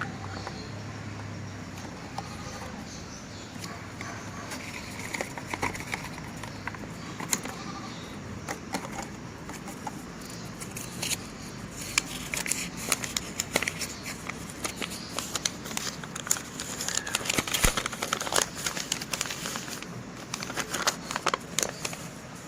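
Handling noise of crinkling and crackling with many scattered clicks and taps, busiest in the second half.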